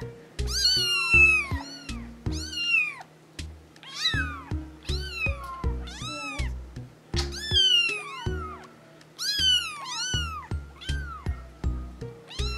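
A litter of young kittens meowing over and over, several at once, in high calls that rise and then fall in pitch. Background music with a steady beat of low notes plays underneath.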